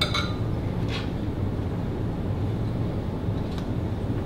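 Steady low hum of the kitchen's background, with a light clink of crockery or a utensil at the start and again about a second in, and a fainter tick later.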